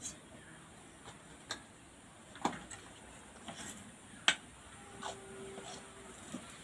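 Scattered clinks and taps of metal kitchen utensils, a wire skimmer and steel bowls, being handled and set down; the sharpest clink comes about four seconds in, with a short steady tone just after it.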